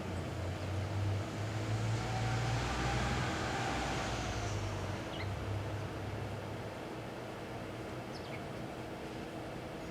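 1987 GE microwave oven running with a pumpkin inside, a steady hum throughout. A swell of rushing noise rises and falls in the first few seconds, and there are a couple of faint ticks.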